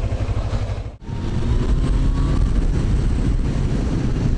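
Motorcycle riding noise: engine running with wind on the helmet-camera microphone, steady, with a brief dropout about a second in.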